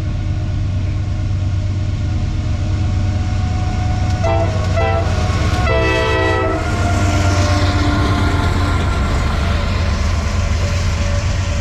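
Diesel train running with a steady rumble while its air horn sounds a chord: two short blasts about half a second apart, then a longer blast of about a second.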